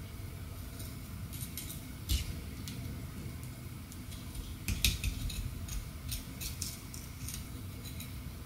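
Kitchen utensil clatter while a fish is being prepared: scattered light clicks and taps of a knife and utensils on a cutting board and dishes, with two louder knocks about two seconds and five seconds in.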